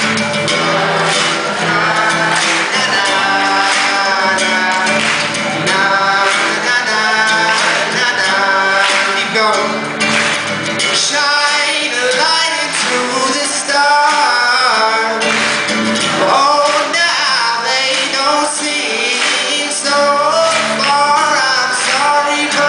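A live song performance: singing over instrumental accompaniment, with sung lines rising and falling in pitch.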